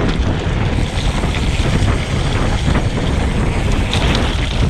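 Wind rushing over the microphone of a mountain biker's camera during a descent, with a steady low rumble from the bike rolling over the dirt trail.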